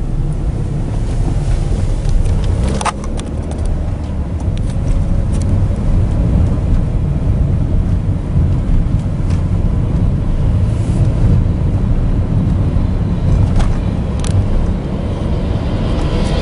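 Steady low road and engine rumble of a moving car, heard from inside the cabin, with a couple of brief faint clicks.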